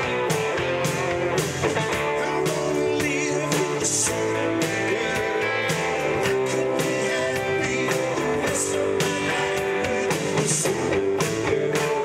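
Live rock band playing: electric guitars and bass guitar over a steady drum beat, amplified through stage speakers.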